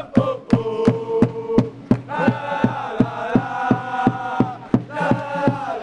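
Football supporters chanting and singing in unison, with a drum keeping a steady beat about four times a second.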